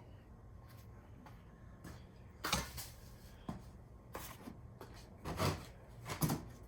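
Oil dipstick being handled at a small engine's fill tube while the oil level is checked: about five short knocks and scrapes, starting about two and a half seconds in.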